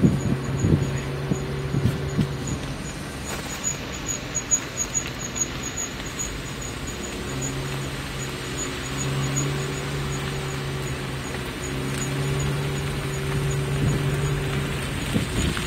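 Car engine humming steadily, with road noise, heard from inside the moving car. A few knocks in the first two seconds; the hum drops back about three seconds in and returns about seven seconds in.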